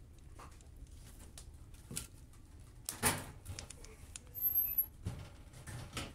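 Metal clunks and scrapes of a pan being slid into a wood-burning cookstove's oven and the oven door being handled: a string of separate knocks, the loudest about three seconds in and a few more near the end.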